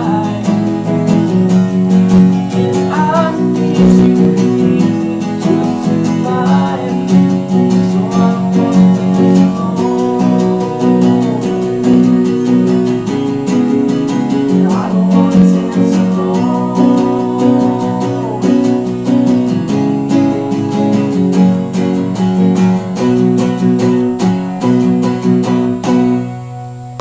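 Live performance of a song: strummed guitar with a singing voice over it, dying away near the end as the song finishes.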